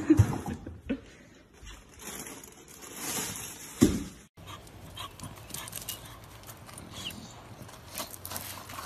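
A bull terrier tugging a freezer drawer open by its handle with its teeth: dog sounds and the drawer rattling and sliding out, with a sharp thump just before four seconds in. Then, after a cut, fainter dog sounds with scattered light clicks.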